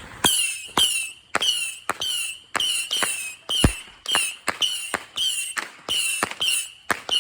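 Firework missile battery firing a rapid string of shots, about two a second, each a sharp pop followed by a short whistle falling in pitch.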